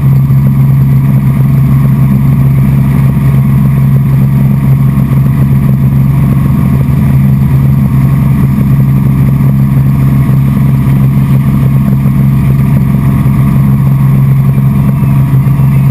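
Helicopter engine and main rotor running steadily at flight power, heard from inside the cabin as a loud, unchanging low hum.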